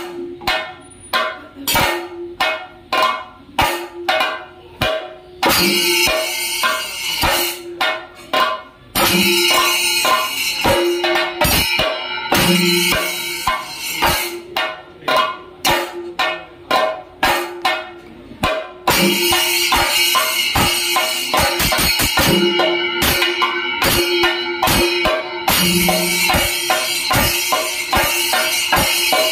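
Thayambaka: Kerala chenda drums struck with sticks, moving between spaced single strokes and stretches of fast, continuous rolling, over the clash of ilathalam hand cymbals. The dense rolling takes over from about two-thirds of the way in.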